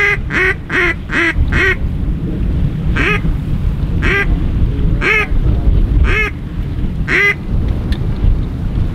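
A series of loud goose-like honks from a single caller: about six in quick succession, then one roughly every second. Steady wind rumbles on the microphone underneath.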